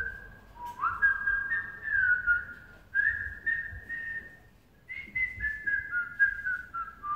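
A person whistling a simple tune: notes slid up into and held, then a few short notes, and near the end a run of notes stepping down in pitch.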